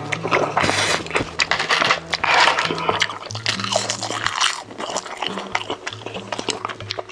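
Close-up eating sounds: wet chewing and lip smacking with many short clicks, over background music with a low bass line that steps from note to note.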